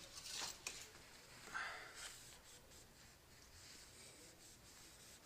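Near silence with faint handling noises: a few soft clicks and brief rustles in the first two seconds, then only room tone.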